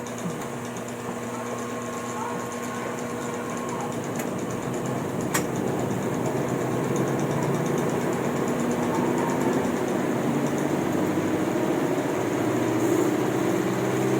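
A steady mechanical hum that slowly grows louder and rises a little in pitch over the last few seconds, with a single short click about five seconds in.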